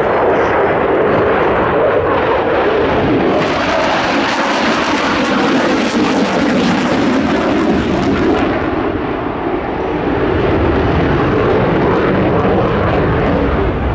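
Dassault Rafale's twin Snecma M88 jet engines in a hard aerobatic turn with afterburners lit: loud, steady jet noise that turns harsher and hissier from about three to eight seconds in.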